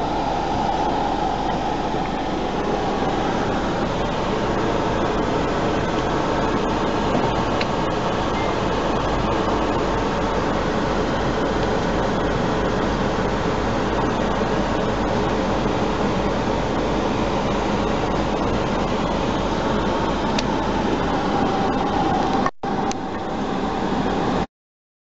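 Steady cabin noise inside a parked Kia Sorento: the engine idling and the ventilation fan blowing. It breaks off briefly near the end, then stops.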